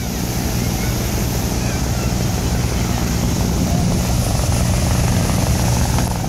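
Helicopter flying low over the water, its rotor beating steadily, with surf washing in the background.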